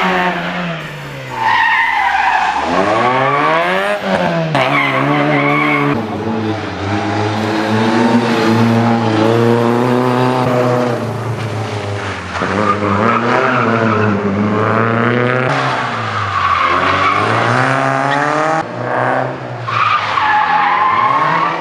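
Rally cars driven hard one after another around a tight tarmac course: engines revving up and down as they accelerate and brake, with tyres squealing through the turns. The sound changes abruptly several times as one car gives way to the next.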